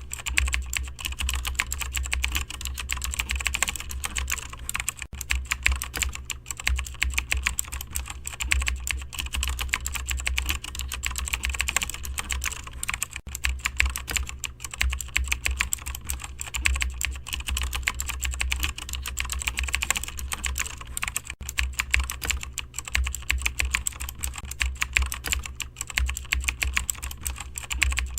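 Fast, continuous typing on a computer keyboard, a dense stream of key clicks without a break, over a steady low hum.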